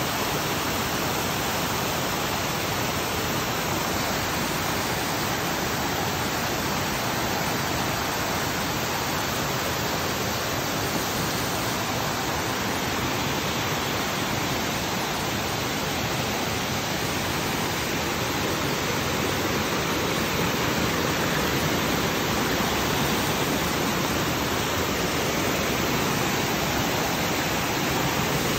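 White water of a rocky forest stream rushing over boulders and a small waterfall: a steady, unbroken rush, a little louder in the last several seconds.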